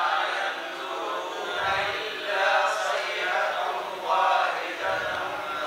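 Several voices recite Quranic Arabic together in a slow, drawn-out chant, with their pitches slightly out of step. It is a class repeating a verse after its teacher.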